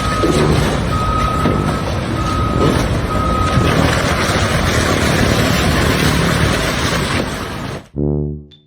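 Reversing alarm on a heavy vehicle beeping about once a second over loud engine noise; the beeps stop about four seconds in while the engine keeps running, and the sound cuts off abruptly near the end.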